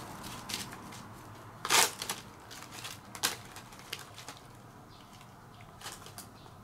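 Dry fallen leaves crunching and rustling under a cat as it pounces and paws about among them, with a few sharp crackles, the loudest about two seconds in.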